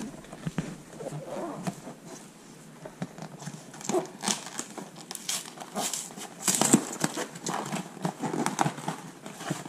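Cardboard box being handled and its lid worked open: irregular taps, scrapes and rustles of cardboard, loudest about two-thirds of the way through.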